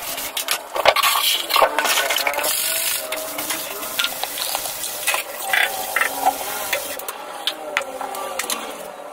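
Cups, a milk pitcher and plastic containers being handled at a drink counter: frequent short clinks, knocks and scrapes, with liquid being poured.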